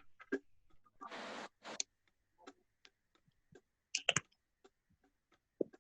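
Bamboo mayohuacán slit drum being tapped on its cut tongues: sparse, irregular wooden clicks and taps, with a louder cluster a little before the end.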